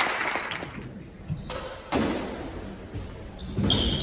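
Spectator hand claps fading out in the first second, then the squeaks of players' court shoes on the hardwood squash court floor, several short high squeaks in the second half.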